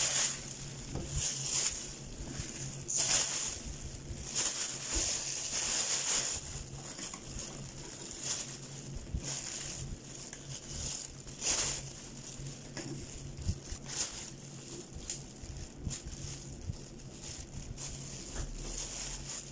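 Thin plastic bag crinkling and rustling in repeated bursts as banana peels are put into it by hand. The bursts come thickest in the first few seconds, with another loud one about halfway through, then grow softer.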